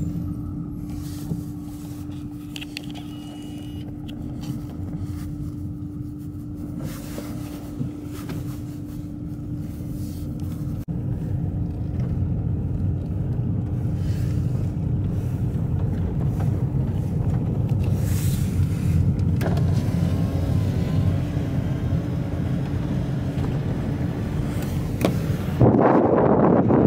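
Road and engine rumble of a moving car, steady and low, with a constant hum. About a second before the end a louder rush of wind noise cuts in on the microphone.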